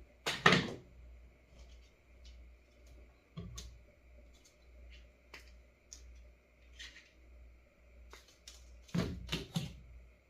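Light clicks and knocks of tools and a small circuit board being handled on a workbench: a loud knock about half a second in, a quick run of three near the end, and scattered small taps between, over a faint steady high whine.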